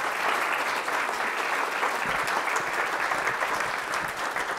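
Audience applauding: many people clapping at once, steady throughout.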